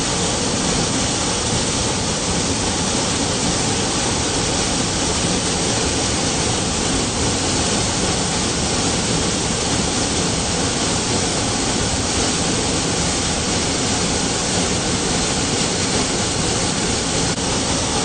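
Large waterfall: a loud, steady rush of falling water.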